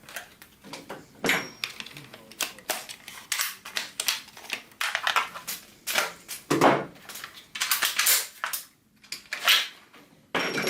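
Irregular clicks, knocks and scraping of a GHK gas blowback AUG airsoft rifle being handled as its trigger pack is taken out of the stock by hand.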